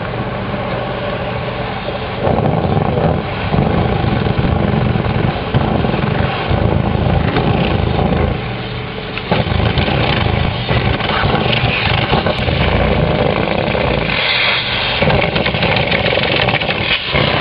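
Motorised dryer vent cleaning equipment running as the brush is worked through the duct: a loud, continuous motor drone that dips briefly a few times and picks up again.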